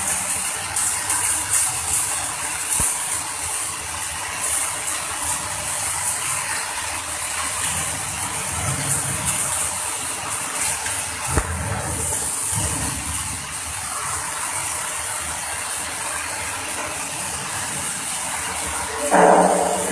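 Electric arc welding: a steady crackle and sizzle of the arc on steel plate, with fine clicks of spattering. A brief louder sound breaks in near the end.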